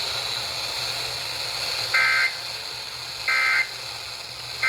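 Emergency Alert System end-of-message data bursts: three short, harsh two-tone digital squawks about 1.3 seconds apart, the third starting right at the end, over steady broadcast hiss. They mark the end of the alert message.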